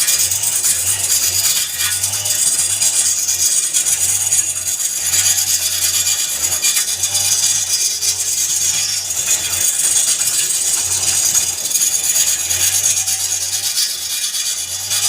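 Turning tool scraping and cutting spinning wood on a lathe: a continuous rasping hiss over the lathe's low hum, which comes and goes in short spells.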